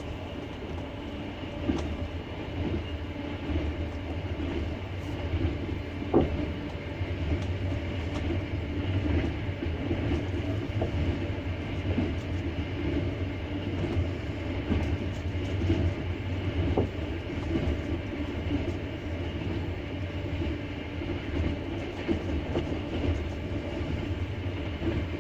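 Wheels of a double-decker passenger train running over the rails at speed: a steady rumble with a few sharper knocks from the rail joints.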